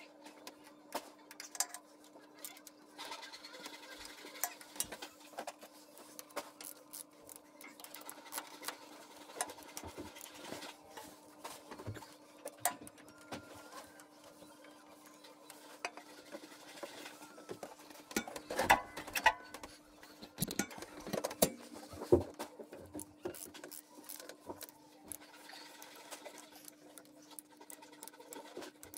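Rapid, irregular clicking and clattering of hand tools and metal parts as a tractor's hydraulic strainer is refitted, with a run of louder clacks past the middle, over a steady low hum.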